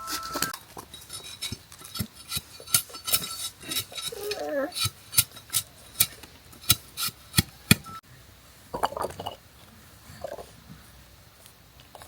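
Kitchen utensils clinking against dishware, a quick run of sharp clinks for about eight seconds, then quieter with a couple of brief voices.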